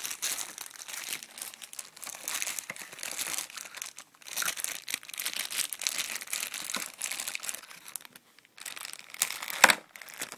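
Packaging crinkling and rustling as it is handled and unwrapped in stretches, with a sharp click near the end.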